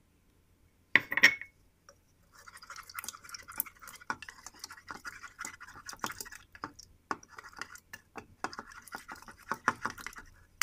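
Eggs being beaten by hand with a balloon whisk in a ceramic bowl: a rapid, scratchy run of swishes and clicks of the whisk against the bowl, with a short break about seven seconds in. About a second in, a single short loud knock.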